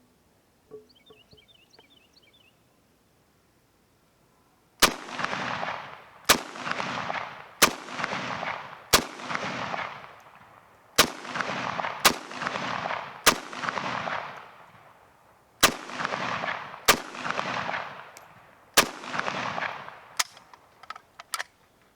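Romanian AK-47 rifle fired in single shots, about a dozen at roughly one-second intervals. Each shot has a long echo trailing off behind it. The first shot comes about five seconds in, after near quiet.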